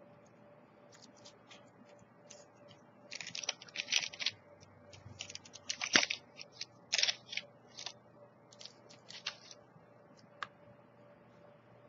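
Plastic snack wrapper, a granola bar's, crinkling and crackling as it is handled and torn open: irregular sharp crackles, loudest in the middle and thinning out toward the end.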